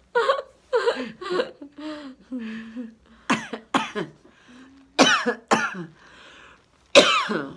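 A woman coughing repeatedly in short fits: about three coughs at the start, then pairs of harsher coughs, and one last hard cough near the end.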